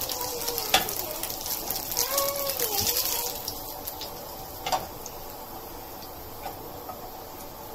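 Thin slices of pounded meat shallow-frying in oil, sizzling with fine crackles that die down after about three and a half seconds.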